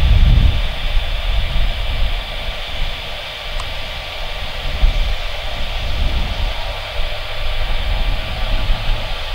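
Military transport plane taxiing on the runway, its engines giving a steady high whine over a low, uneven rumble.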